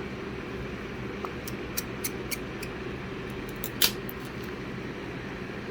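Small sharp clicks and ticks of a precision screwdriver and metal tools on an iPhone XS Max's internal frame as its tiny screws are put back in, with one louder click about four seconds in. A steady room hum runs underneath.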